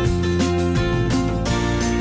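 Background music with a steady beat over sustained held notes.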